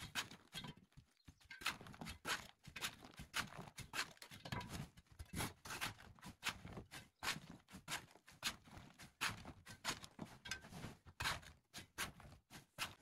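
Hand chisel chipping and raking old mortar out of the joints of a rubble-stone wall: irregular sharp taps and scrapes, about two or three a second, with bits of mortar falling.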